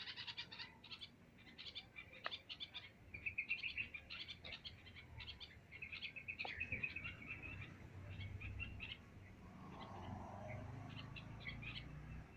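Small birds chirping: quick series of short, high notes, several birds overlapping. A low rumble comes in under them in the second half.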